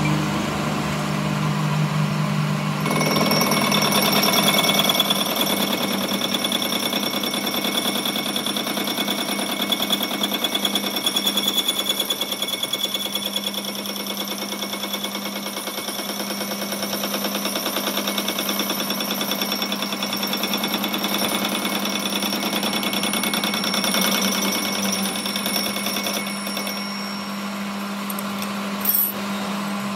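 Metal lathe taking a facing cut across a spinning metal disc: the cutting tool rattles rapidly against the metal with steady high ringing tones over the machine's low hum. The high ringing comes in about three seconds in and fades near the end.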